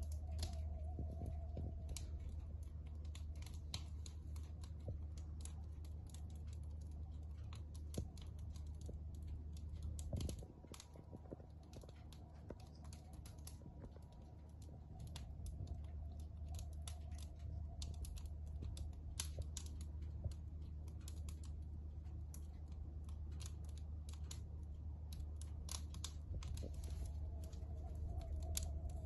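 Wood fire in a fireplace crackling, with many irregular sharp snaps and pops over a steady low hum.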